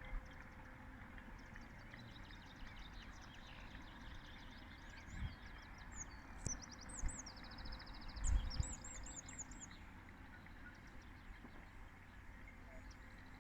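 A songbird singing close by: quick repeated chirps and a fast trill, then a run of five looping whistled notes about two-thirds of the way through. Underneath is a steady distant wash of noise, with a few low bumps about five and eight seconds in.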